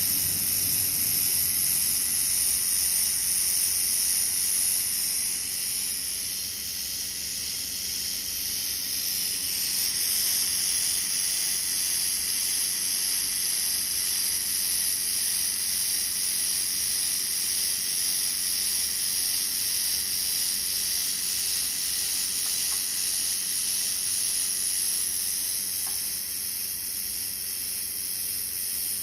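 Handheld laser welding machine running with a steady, high hiss throughout.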